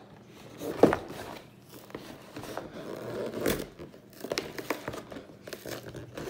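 Cardboard Lego set box being handled and opened on a table: scraping and crinkling, with sharp pops about a second in and again about three and a half seconds in as the box tabs and seals are pushed and torn open.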